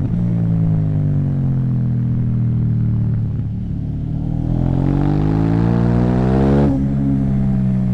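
KTM 790 Duke's parallel-twin engine through an Akrapovic exhaust, under way: the revs fall away off the throttle, then climb under acceleration and drop sharply at an upshift just before the end.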